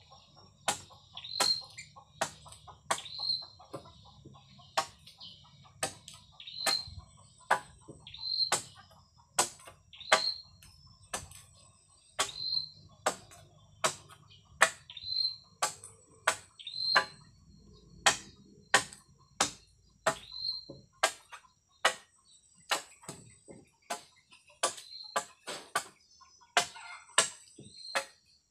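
Blade, likely a machete, chopping at a bamboo pole: a steady run of sharp knocks, about one or two a second, many ending in a short high ring. Insects chirr steadily behind.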